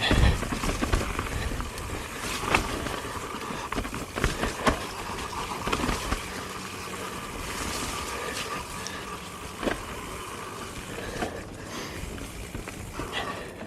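Transition Spire alloy enduro mountain bike being ridden over rough trail: tyres rolling on dirt and snow, with frequent knocks and rattles from the bike over bumps.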